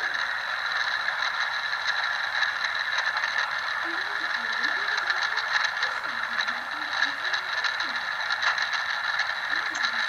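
HO-scale model train running along the track, heard close up: a steady whirring hum from the running gear with many light, irregular clicks.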